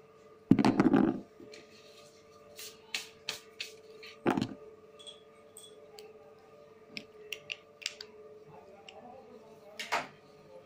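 Handling noise from drawing on paper at a table: a loud rough knock about half a second in, a thump about four seconds in, and scattered sharp clicks and taps, over a steady faint hum.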